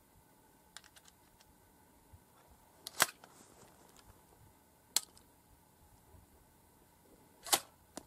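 Homemade reverse-cycle 12-gauge shotgun firing: three sharp shots, about three, five and seven and a half seconds in, with lighter clicks around them.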